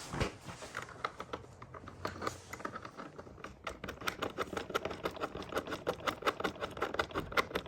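Rapid, even clicking, several clicks a second and thickest in the second half, as a threaded caster wheel is spun by hand into a creeper's frame, the metal and plastic parts ticking as it turns.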